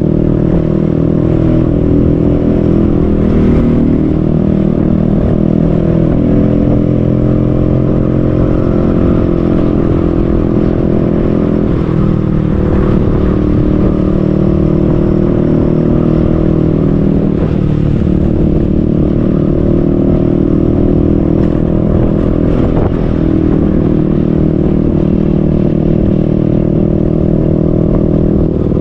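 Motorcycle engine running steadily while riding along a road, heard from on the bike, with a couple of brief shifts in pitch midway as the speed changes.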